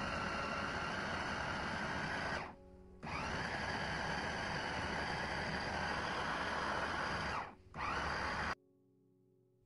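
Electric meat chopper's motor running with a steady whine as its blades grind raw pork into a paste. It is switched off about two and a half seconds in, the whine falling away, then restarts with a rising whine half a second later; after a brief dip near the end it stops for good.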